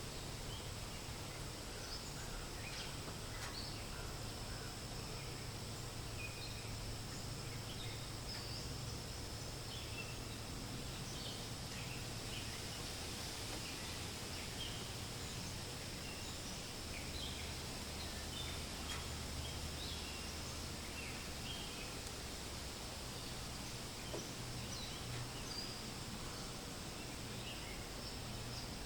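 Forest ambience: a steady hiss of wind with many short, scattered bird chirps and a steady high-pitched hum underneath, like insects.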